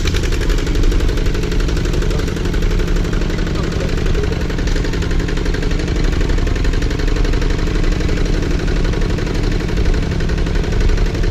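Two-wheel walking tractor's single-cylinder diesel engine running steadily with a fast, even chugging as it pulls a loaded trailer.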